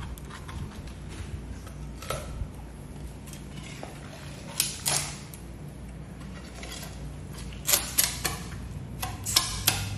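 Knife cutting along the backbone of a whole bluefin tuna, the blade scraping and clicking against the bones in short sharp strokes, a few at first and a quick run of them near the end, over a steady low hum.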